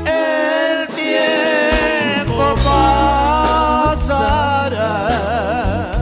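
Live band music: electric bass and guitar with a sung melody that ends on a long, wavering held note. The bass drops out for about the first two seconds, then comes back in.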